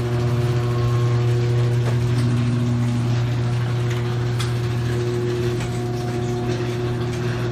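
Garage door opener motor running steadily as it drives the door, set off through the smart Wi-Fi controller under test.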